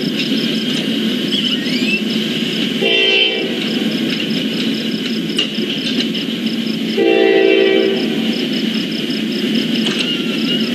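Nathan K5LA five-chime horn on a GE D9-40CW locomotive sounding two blasts about four seconds apart, the second one longer, over the steady rumble of the Roadrailer train rolling through the crossing.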